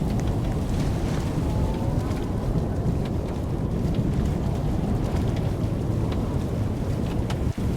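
Steady storm din: a dense low rumble with the hiss and patter of heavy rain. The sound cuts out for an instant near the end.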